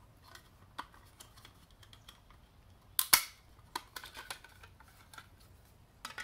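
Plastic seat heater module housing handled against a metal power-seat frame: scattered light clicks and taps, with a loud double click about three seconds in as it is pushed into place.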